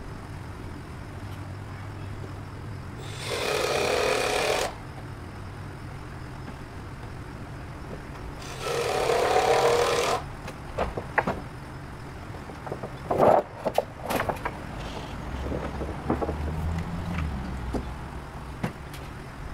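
Two short bursts from a power tool, each about a second and a half long, followed by a scatter of sharp wooden knocks and clatters as lumber is handled.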